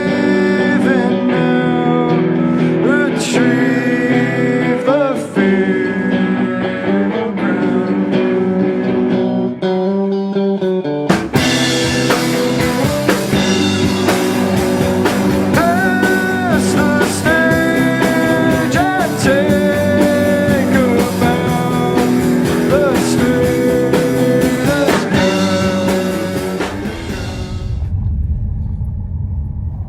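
Rock song with singing over guitar; drums and the full band come in about eleven seconds in. The music stops near the end, leaving a low rumble.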